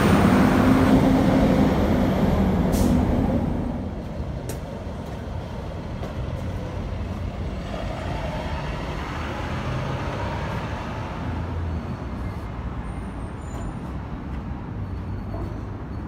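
Road traffic on a bridge: a large vehicle passes close by with a loud engine hum that fades over the first few seconds, leaving a steady lower traffic rumble.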